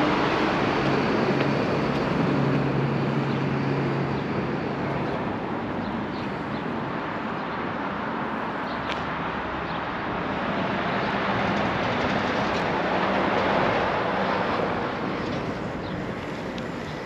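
Steady urban traffic noise: a continuous rumble of vehicles, with a low hum through the first five seconds or so.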